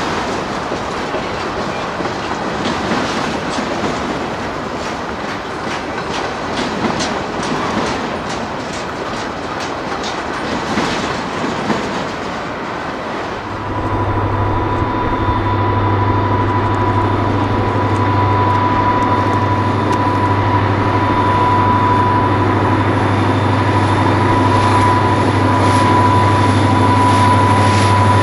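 Train rolling past, wheels clicking over rail joints with steady rolling noise. About halfway through the sound changes suddenly to a steady low hum with a thin high whine, slowly growing louder.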